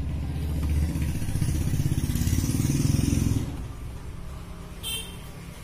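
A motor vehicle engine passing by, rising to its loudest about three seconds in and then fading away. A short high-pitched chirp follows about five seconds in.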